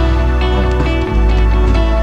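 Background music: a gentle new-age piece with plucked guitar-like notes over a held bass, the bass note changing about a second in.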